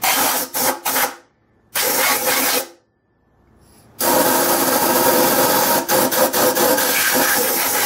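Compressed-air blow gun blasting down into a cylinder bore of the engine block to clear it: three bursts of hiss, two short ones and then a long one of about four seconds.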